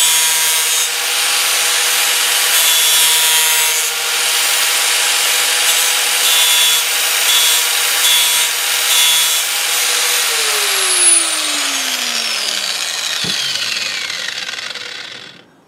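Electric angle grinder fitted with a disc rebuilt from two cracked discs, cutting steel held in a vise with a steady motor whine and a harsh grinding rasp. About ten seconds in it is switched off, and the whine falls steadily in pitch as the disc spins down to a stop.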